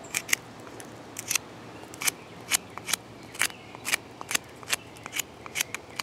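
Squared 90-degree spine of a Lon Humphrey Tarpon fixed-blade knife scraped along a stick, stripping off bark. The short strokes come in a steady run, about two a second.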